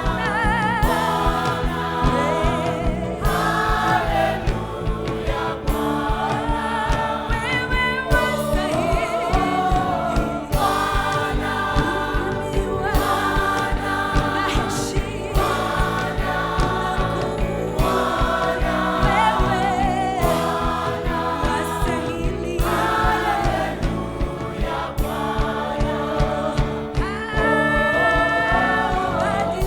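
Gospel choir singing a worship song with band accompaniment and a steady beat.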